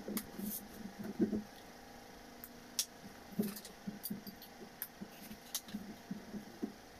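Scattered light taps, clicks and small thumps from a hand working a laptop keyboard and handling pen and paper on a small table, at irregular moments over a faint steady hum.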